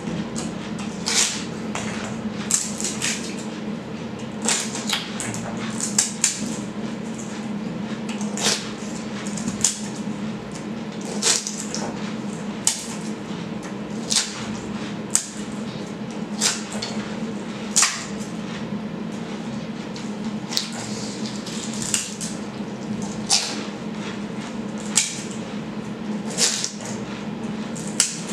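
Golgappas (pani puri) being eaten rapidly: short, sharp crunching and slurping noises about once a second as water-filled puris are bitten, over a steady low hum.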